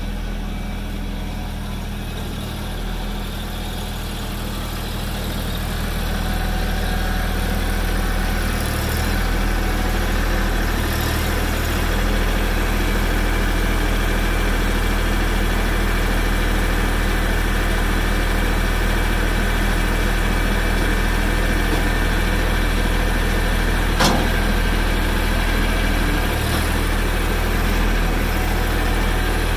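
Mahindra Max 26XL compact tractor's three-cylinder diesel engine running steadily, growing louder about six seconds in. A single sharp knock about 24 seconds in.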